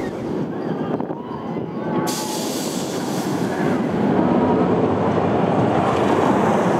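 Kingda Ka steel roller coaster train plunging down its vertical drop: a rushing rumble of wheels on track that grows louder about four seconds in.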